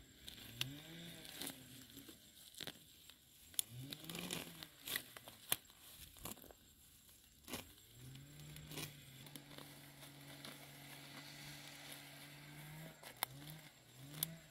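Grass and weeds being pulled up by hand, tearing and rustling with scattered sharp snaps. A faint low hum swells twice early on, holds steady for several seconds in the middle and pulses in short rises near the end.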